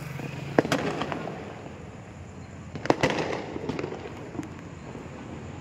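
Firecrackers and aerial fireworks bursting across the neighbourhood: two sharp bangs, one about half a second in and one about three seconds in, each trailed by smaller pops and echo.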